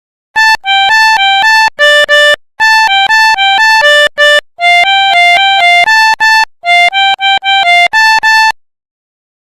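Pianika (melodica) playing the telolet 'Basuri' bus-horn tune in quick short notes, grouped in three phrases with brief breaks, sometimes two notes sounding together. It stops about a second before the end.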